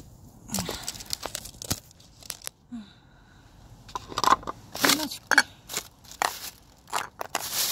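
Crinkling and crunching handling noises in irregular bursts, growing louder and denser near the end.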